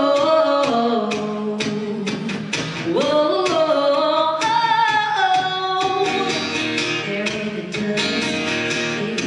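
A woman sings a country song live into a microphone, accompanied by a strummed acoustic guitar.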